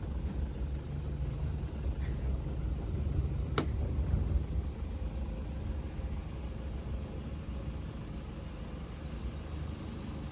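Insects chirping in a steady, high-pitched rhythm, about three chirps a second, over a low rumble. A single sharp click comes about three and a half seconds in.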